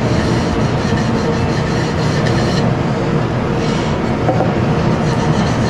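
Hand rubbing dry powder glaze off the outside of a wooden workpiece, heard over a steady loud rushing noise.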